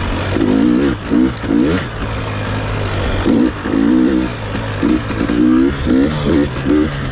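KTM 300 XC-W two-stroke single-cylinder engine revving up and dropping back over and over in short bursts, roughly once or twice a second, as the rider works the throttle.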